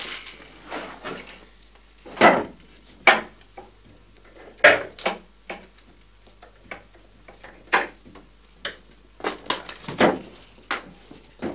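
Irregular clatter of clothes being pulled from a wooden wardrobe: hangers clinking on the rail and knocks against the wood. The knocks come unevenly, a dozen or so, with the loudest about two, three, four and a half, and ten seconds in.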